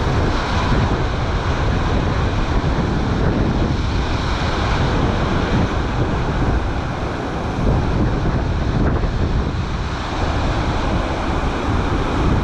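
Storm-driven sea surf breaking on the shore, a steady rushing noise, with strong wind buffeting the microphone.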